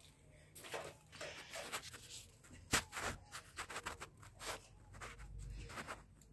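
Irregular soft clicks and rubbing: handling noise from a phone being moved about while it films.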